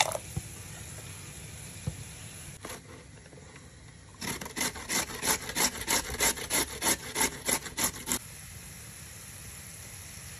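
Beetroot being grated on a metal box grater: a run of quick, even rasping strokes, about four a second, starting about four seconds in and stopping about four seconds later.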